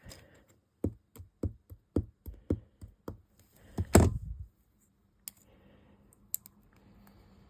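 Small plastic mini building bricks clicking and knocking as they are handled and pressed together. A quick run of about a dozen sharp clicks over three seconds, the loudest knock about four seconds in, then a few scattered clicks.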